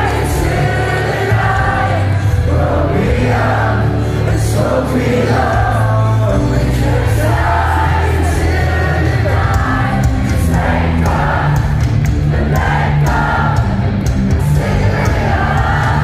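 Loud live rock music over a concert PA, with heavy bass and singing, heard from within the crowd.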